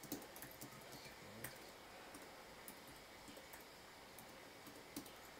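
Faint, scattered keystrokes on a computer keyboard, a few separate clicks with short pauses between them, as configuration commands are typed.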